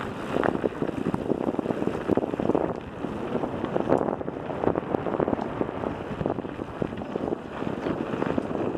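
Wind buffeting the microphone of a camera riding on a mountain bike descending a loose gravel track, with the constant crunch of tyres on gravel and irregular rattles and knocks from the bike going over bumps.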